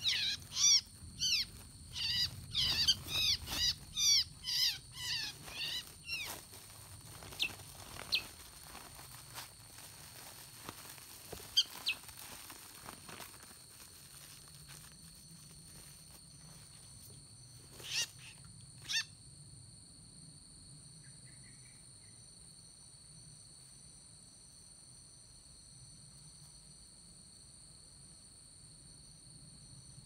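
A bulbul stuck on a lime-stick snare gives rapid, repeated falling chirps, two or three a second, for the first six seconds, then only a few lone notes. From about halfway through, a steady high insect drone runs underneath.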